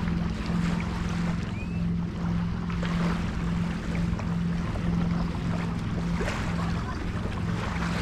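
Seaside ambience: a steady low hum under wind on the microphone and a light wash of surf.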